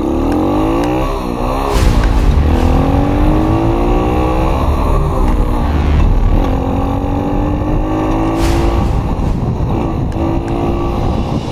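Motocross bike engine accelerating up through the gears, its pitch climbing and then dropping back at each gear change, about three times. Heavy wind rumble on the microphone underneath.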